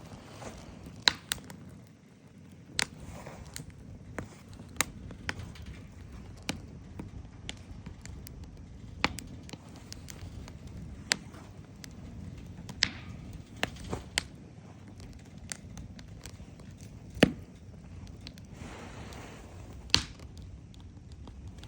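Wood fire crackling, with sharp irregular pops, a few of them loud, over a low steady rumble.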